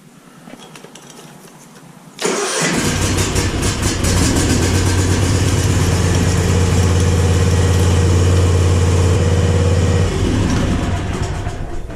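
Kawasaki FR730V V-twin engine on a Cub Cadet ZT2 zero-turn mower starting about two seconds in and running steadily, then getting quieter near the end. This is the first run after an oil and filter change, to push the fresh oil into the new filter.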